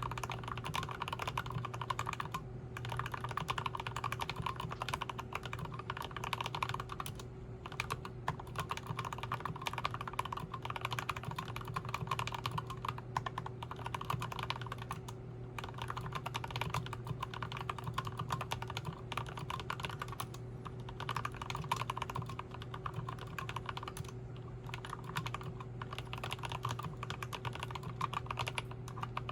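Continuous typing on a Tokyo60 60% mechanical keyboard with Turquoise Tealios linear switches lubed with Krytox 205g0. Keystrokes come in quick runs broken by short pauses, over a steady low hum.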